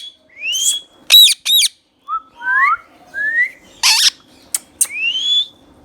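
Indian ringneck parakeet calling: a run of short, sharp screeching notes mixed with rising whistles, with one louder harsh squawk about four seconds in.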